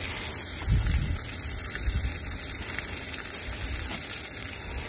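Fish fillets frying in a pan, a steady sizzle, with a couple of low thuds about a second and two seconds in.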